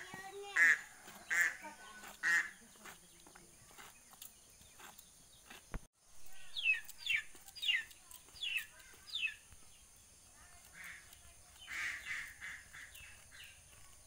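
Ducks quacking: a run of short calls in the first few seconds and again near the end. In between, a bird gives five quick falling calls.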